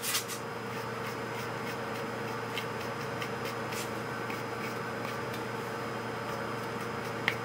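Steady hum and hiss of room noise with a faint steady tone, broken by a few soft ticks and one slightly sharper click near the end.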